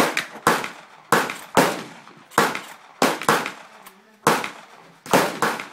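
Saiga 12 semi-automatic 12-gauge shotgun fired from the shoulder: about ten shots in quick, uneven succession, roughly half a second to a second apart, each with a short echoing tail.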